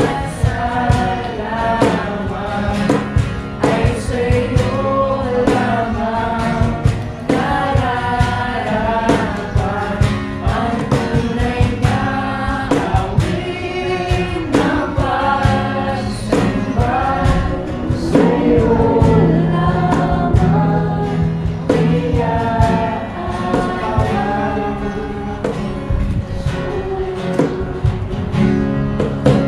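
Music with group singing over a steady beat and bass, in the style of gospel or worship songs.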